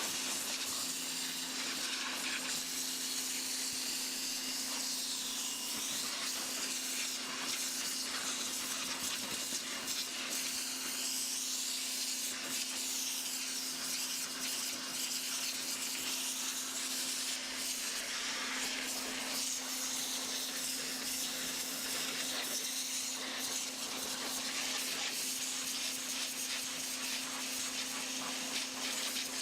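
Homdox 3500 PSI electric pressure washer running: its pump motor hums steadily under a continuous hiss of water jetting from the red zero-degree tip onto thick cardboard.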